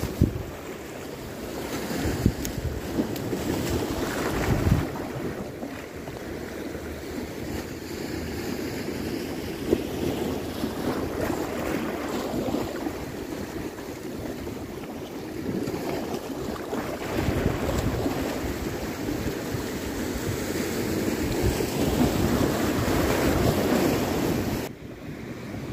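Sea waves breaking and washing over shoreline rocks, with wind buffeting the microphone. The surf swells and eases every few seconds, then falls away abruptly near the end.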